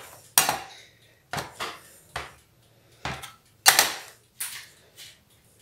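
Metal bench scraper chopping through bread dough and striking the sheet-metal tray beneath: a series of about eight sharp knocks at an uneven pace, the loudest a little past the middle.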